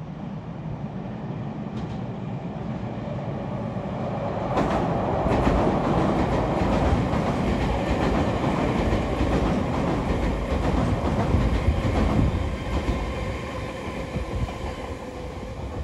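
A Tobu limited express train passing through the station without stopping. Its running noise swells from about four seconds in, with clattering wheel clicks over the rail joints, and eases off near the end.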